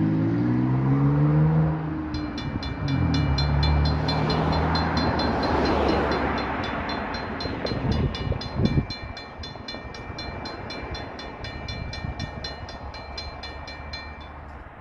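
Mechanical railroad crossing bell, a Safetran, starts ringing with fast, even strokes about two seconds in as the crossing gates come down, and grows fainter near the end. A vehicle passes underneath, with a few thumps around the middle as it crosses the rails.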